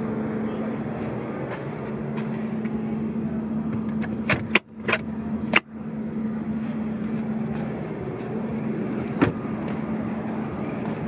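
Interior hood release lever pulled twice, giving a few sharp plastic-and-cable clicks about four to six seconds in that release the hood latch, over a steady low hum. Another single click comes near nine seconds.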